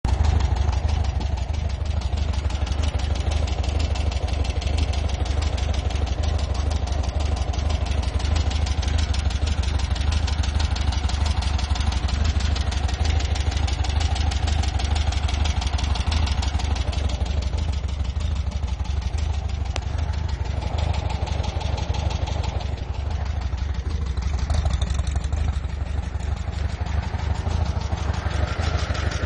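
Volkswagen Fusca's air-cooled flat-four engine idling steadily with a fast, regular knocking clatter. The noise has persisted through a valve adjustment, an oil change and a timing adjustment; the owner suspects a lifter, piston or connecting rod.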